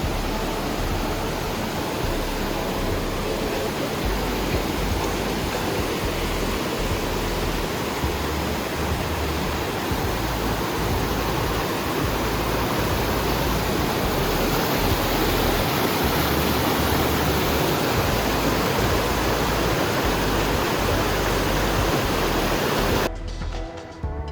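A steady, even rushing noise that cuts off abruptly near the end, where music comes in.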